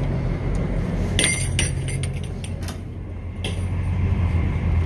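A glass exterior door being pushed open and let go: a quick run of metallic clinks and clacks from its latch and push bar about a second in, and another sharp click a couple of seconds later, over a steady low hum.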